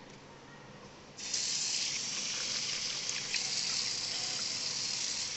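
Tap water running into a sink basin, switched on abruptly about a second in and flowing steadily, with a few light splashes.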